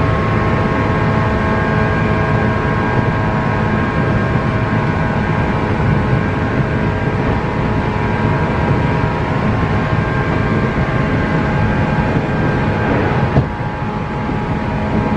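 Inside a JR 117-series electric train running at speed: the whine of its MT54 traction motors and gears, several steady tones over the rumble of wheels on rail. About thirteen seconds in there is a click, after which it runs a little quieter.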